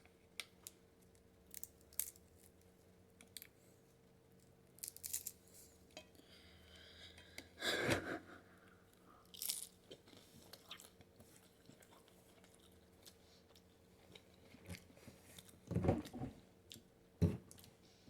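A person biting and chewing crunchy food, faint, with scattered crunches and a few louder ones about eight seconds in and near the end.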